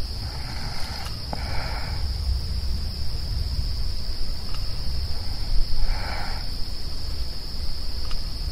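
Crickets trilling in a steady high-pitched drone over a low rumble, with three short bursts of sound: two back to back near the start and one about six seconds in.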